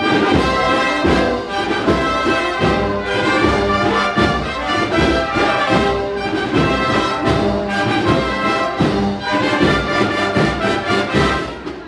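An agrupación musical, a Spanish processional band of cornets, trumpets, trombones and drums, strikes up a procession march at full volume, with brass chords over regular drum beats.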